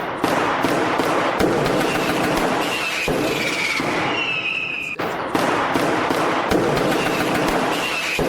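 New Year's Eve street fireworks: a dense run of bangs and crackling, with short whistling rockets that dip slightly in pitch a few times.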